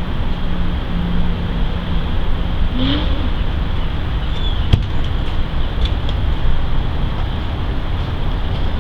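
Steady low rumbling background noise, typical of wind on the microphone or passing traffic, with one sharp click just before the five-second mark.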